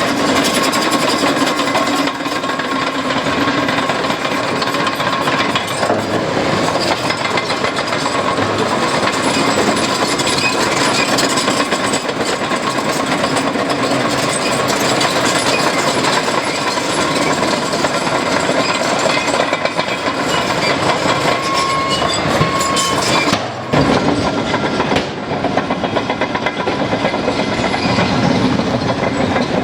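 Heavy tracked construction machinery at work: diesel engines running under load with a continuous metallic clanking and clatter of steel crawler tracks. There is a sudden short break about 24 seconds in, then it resumes.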